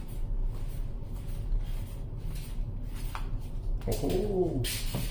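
Steady low hum with faint scattered rustles, then about four seconds in a man's drawn-out "Oh" that rises and falls in pitch, followed by a short breathy hiss.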